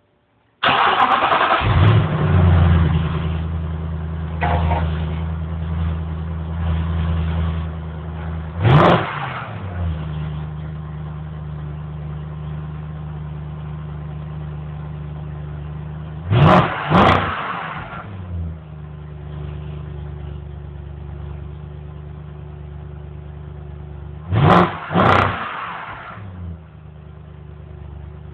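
BMW X5 4.8i's 4.8-litre V8 starting up about half a second in and settling into a fast idle that slowly drops. It is then briefly revved: once near nine seconds, twice in quick succession around seventeen seconds, and twice more around twenty-five seconds, falling back to idle each time.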